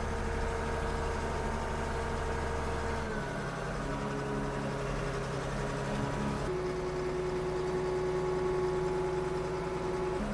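Landfill compactor's diesel engine running steadily as the machine's blade pushes a heap of garbage; the engine note shifts to a different pitch about three seconds in and again a little past six seconds.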